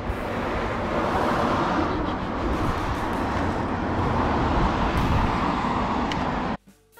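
Steady rushing wind and road noise while riding an e-bike along a road, cutting off suddenly near the end.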